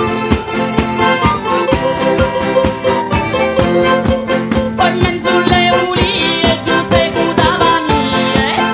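A live folk band plays an instrumental passage of a Salento dance tune: sustained accordion chords over a fast, even percussion beat with jingles, and a wavering melody line entering about halfway.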